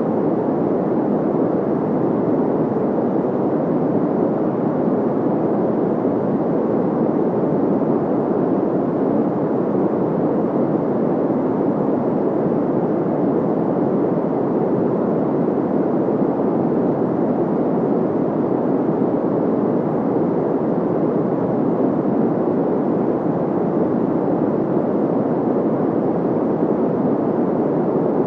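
Steady synthetic white-noise track, filtered so most of its energy sits in the low and middle range: an even, muffled hiss that never changes.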